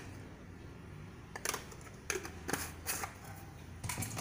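Several light, separate clicks and taps spread over a few seconds: small kitchen containers and utensils being handled on the counter, over a faint low hum.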